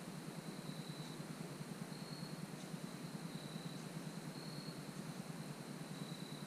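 Insects calling: short high tones about once a second, alternating between two slightly different pitches, over a steady low rumble.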